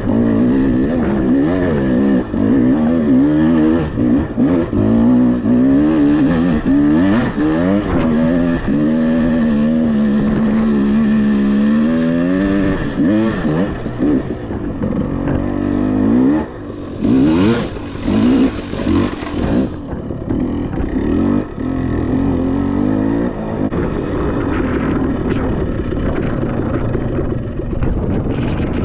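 Dirt bike engine revving up and down continually as the throttle is worked. About two-thirds through, a brief rush of noise rises over it.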